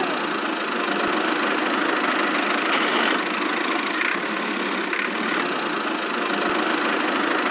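A small motor running steadily at an even speed.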